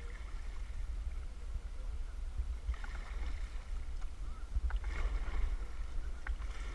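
Rushing river water with a steady low rumble of wind on the microphone, and a few splashes about three and five seconds in.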